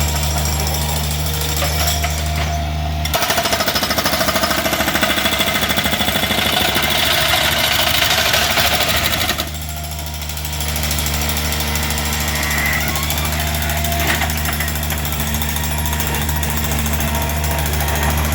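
A concrete breaker hammering rapidly for about six seconds as it breaks up concrete. A steady engine hum runs before and after it, stopping about three seconds in and returning after the hammering ends.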